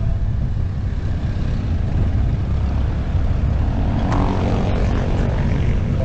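Wind buffeting a helmet- or handlebar-mounted action camera's microphone on a moving bicycle, a dense low rumble mixed with road traffic. About four seconds in, a passing motor vehicle's engine swells briefly.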